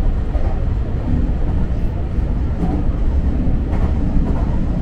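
Tobu Urban Park Line electric train running at speed, heard from inside the front car: a steady low rumble of wheels on rail with a few faint clicks.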